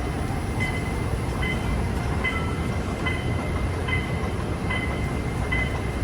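Train running with a steady rumble, and a short two-tone electronic beep repeating about every 0.8 seconds.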